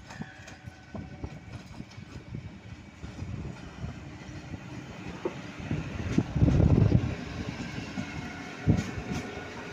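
A train passing, its wheels clicking over rail joints. There is a louder rumbling stretch about six seconds in and a sharp knock near the end.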